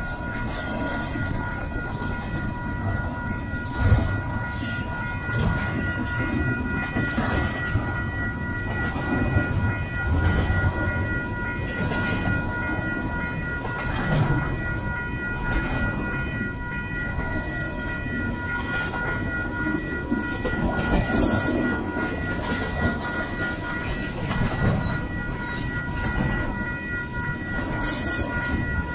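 Double-stack intermodal container well cars rolling past at close range: a steady rumble of wheels on rail, broken by irregular louder knocks and clanks. A faint steady high ringing tone runs underneath throughout.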